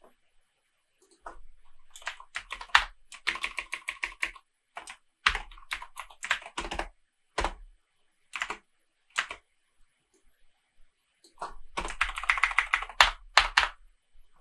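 Typing on a computer keyboard: single key presses and quick runs of keystrokes, with the busiest runs about three seconds in and again near the end, and a short pause shortly before the last run.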